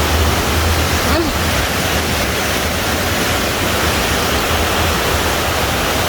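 Waterfall's water rushing, a loud, steady roar.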